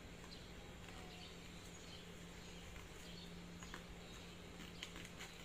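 Quiet room tone with a steady low hum, and a few faint soft clicks from the dog shoe being handled and fastened onto the paw.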